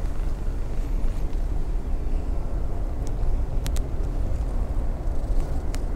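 Steady low outdoor rumble with a few faint, short clicks.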